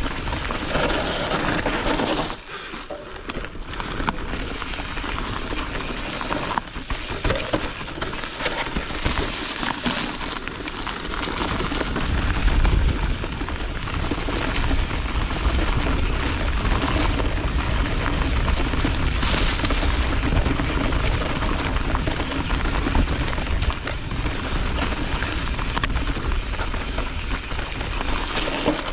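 Mountain bike tyres rolling fast over dry leaf litter and packed dirt, with the rattle and knocks of a Canyon Strive enduro bike's chain and frame over roots and bumps. Wind rumbles on the camera microphone, getting heavier about midway as speed picks up.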